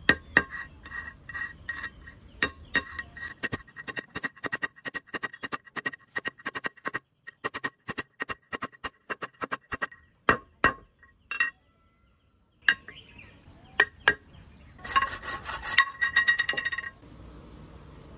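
Small hard parts clicking and clinking with a short metallic ring, in quick uneven taps of about three to five a second, pausing briefly partway through, then a dense clattering rattle for about two seconds near the end.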